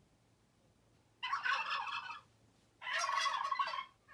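Turkey gobbling twice, each gobble a rapid rattling call about a second long.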